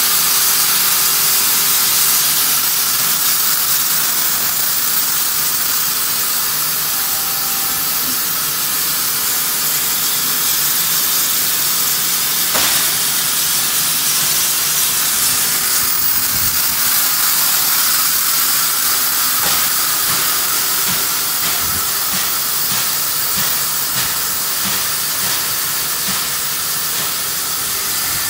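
Steam locomotive 5917 standing with a steady loud hiss of escaping steam. There is one sharp click about halfway through and a run of faint regular knocks in the later part.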